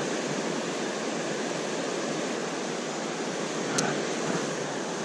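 Steady rush of river water flowing over rocks, with one brief click a little before the end.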